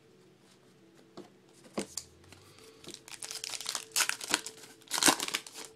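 A trading-card pack wrapper being torn open by hand, crinkling and tearing. The sound starts about two seconds in, grows busier, and is loudest near the end.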